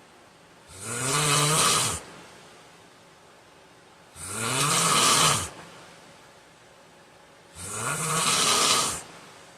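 A man snoring loudly in a steady rhythm: three long snores of about a second and a half each, one every three and a half seconds, with quiet breathing in between.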